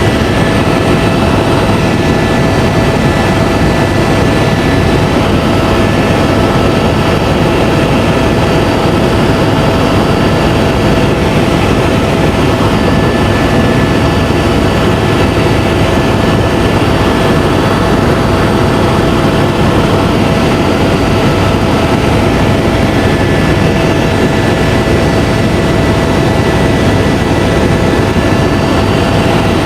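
Helicopter in flight heard from inside the cabin: a loud, steady rumble of turbine and rotor with a few thin, steady whining tones over it.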